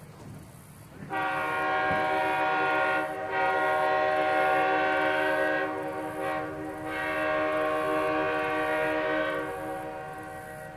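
An air horn blowing one long blast that starts about a second in, dips briefly twice, and fades out near the end.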